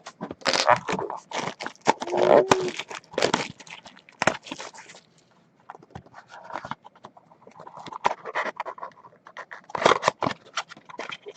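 Crinkling, tearing and rustling of wrapping and cardboard as a trading-card mini box is opened and handled, in irregular bursts with short quiet gaps.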